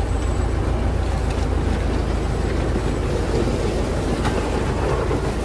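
Engine of a homemade logging truck running steadily under load as it crawls along a muddy track, with a couple of sharp knocks, one at the start and one about four seconds in.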